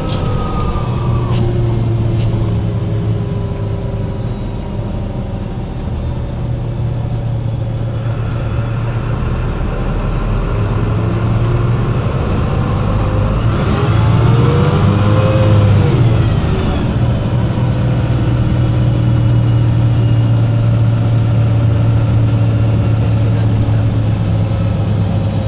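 MAN NL 263 city bus's D08 diesel engine idling with a steady low hum, revving up and back down once about halfway through.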